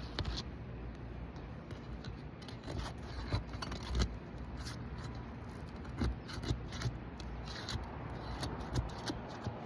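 Asphalt roof shingles being pried up by hand: scraping and a string of sharp clicks and cracks as the sealed tabs are broken loose, with a steady low rumble underneath. The shingles are stuck down by their seal strips and resist lifting.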